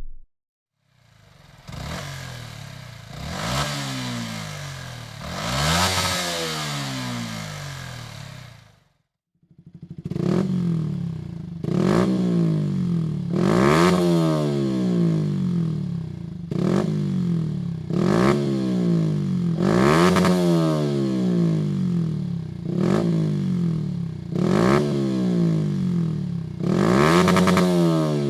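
Yamaha YZF-R125's single-cylinder four-stroke engine breathing through a Dominator full exhaust system, revved repeatedly. Two slower rises and falls come first. After a short break comes a run of quick throttle blips about every two seconds.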